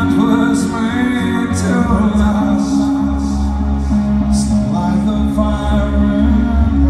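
Live electronic band performance, amplified through a venue PA: a man sings into a microphone over sustained synthesizer chords and a deep, steady bass.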